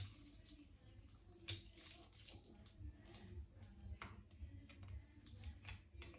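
Faint, wet cutting and scraping of a fish being filleted, with scattered small clicks and a sharper click about a second and a half in.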